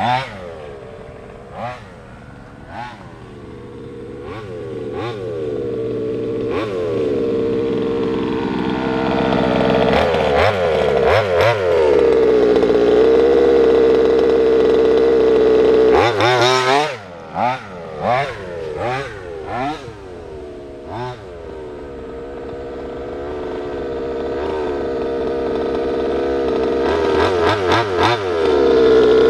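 Big-bore two-stroke gasoline engine of an HPI Baja 5SC 1/5-scale RC truck with a silenced side-pipe exhaust, being driven: short throttle blips, then a long full-throttle run that grows louder and higher as the truck comes close, cutting off suddenly about halfway. More blips follow, then another full-throttle run building louder toward the end.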